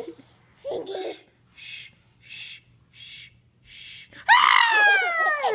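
Baby laughing: four short breathy gasps, then near the end a loud, high-pitched squeal of laughter that slides down in pitch.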